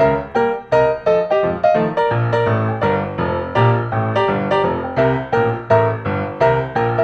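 Background music: a quick piano tune of separate struck notes, several a second, over a bass line.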